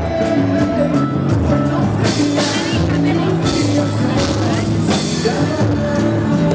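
A samba group playing live, with a singing voice over held bass notes and steady percussion.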